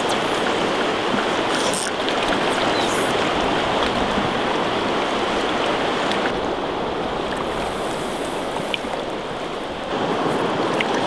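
Steady rush of a fast, shallow river running over gravel and stones, a little quieter for a few seconds in the middle.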